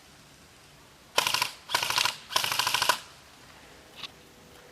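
Airsoft gun firing three short full-auto bursts in quick succession, each a rapid rattle of shots, followed by a single faint click near the end.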